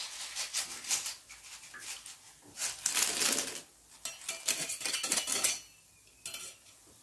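Metal wire-mesh strainer scraping and clinking against a metal wok of frying oil, a quick run of clinks and rattles that stops about five and a half seconds in.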